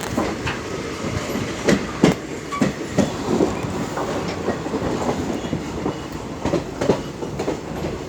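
Train running on the track: a steady rumble with irregular clacks and knocks from the wheels over the rails.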